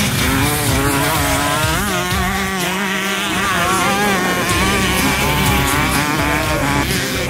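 Motocross dirt bike engine revving hard, its pitch climbing and dropping again and again as the throttle is worked.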